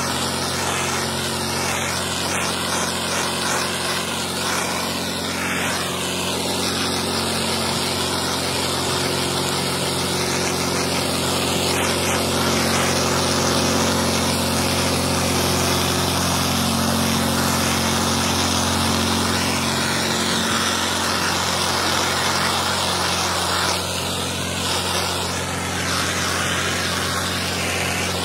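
Pressure washer engine running steadily, with the hiss of the high-pressure water jet from the wand striking concrete.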